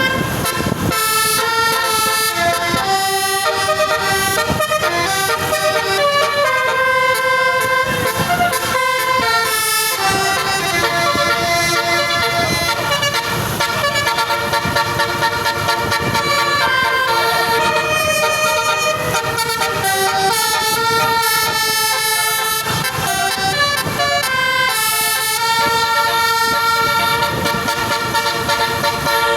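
Telolet basuri bus horn playing a tune: a long run of held horn notes that step up and down in pitch, one after another, with hardly a break.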